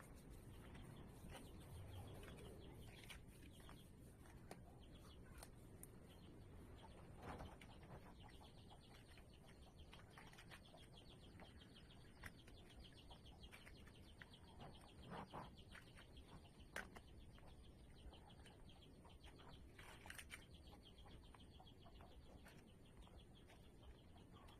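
Near silence: faint background tone with scattered light clicks.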